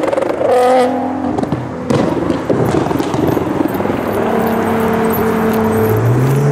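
Sports cars driving along the road, loud engine and tyre noise, with a steady engine drone through the second half and an engine revving up near the end.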